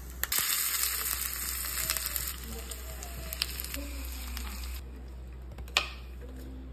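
Food sizzling in hot oil in a pan, starting abruptly and dying down after about four and a half seconds. A single sharp knock comes near the end.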